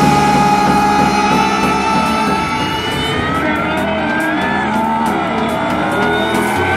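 Engines of a Ford F-150 pickup and a Honda S2000 drag racing, revving at the start line and then rising in pitch as they launch down the strip, with music playing underneath.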